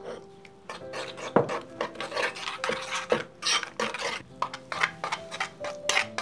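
Metal spoon stirring and scraping a thick red chili-paste seasoning in a ceramic bowl, with quick repeated clinks and scrapes of the spoon against the bowl. The stirring starts about a second in.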